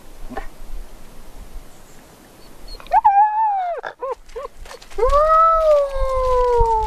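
Six-week-old long-haired German shepherd puppy crying: one cry about three seconds in, a few short yelps, then a long high cry that slowly falls in pitch near the end.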